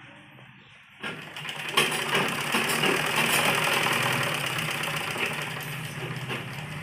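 Gulzar straight-stitch sewing machine running steadily, stitching through layers of fabric. It starts about a second in and eases off a little near the end.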